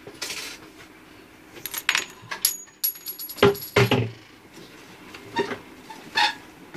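Steel link bracelet of a wristwatch clinking and rattling as the watch is handled and turned: a quick run of sharp metallic clicks with brief high ringing, loudest about halfway through, and a couple of lighter clicks near the end.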